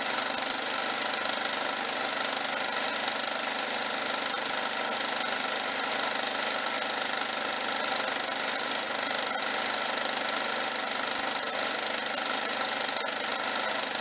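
John Deere STX30 lawn tractor's engine running steadily while the tractor stands still, holding an even speed.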